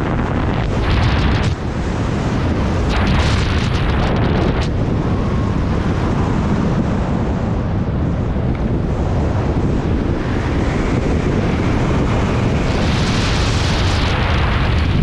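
Skydiving freefall wind rushing over the microphone: a loud, steady, buffeting rush of air, with a hissier stretch near the end.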